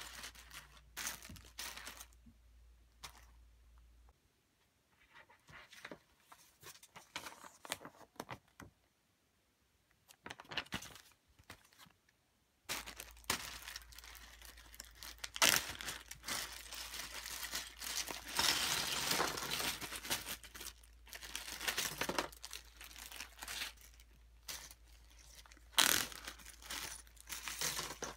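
A plastic zip-lock bag full of Lego Technic pieces crinkling as it is handled, opened and shaken, with the loose plastic parts rattling inside. It is faint and intermittent for several seconds in the first half, then louder and busier from about halfway.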